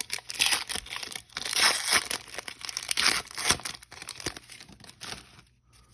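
Plastic trading-card pack wrapper being torn open and crinkled, loud and crackly for about three and a half seconds, then thinning out and dying away.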